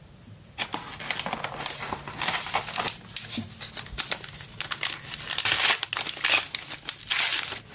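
A trading card pack's wrapper being torn open and crinkled in hand: a run of crackling rustles and tears that starts about half a second in and is loudest in the last couple of seconds.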